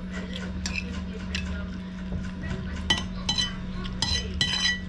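Metal spoon clinking and scraping against a ceramic plate as food is scooped up: quiet at first, then a run of sharp ringing clinks in the second half, under a steady low hum.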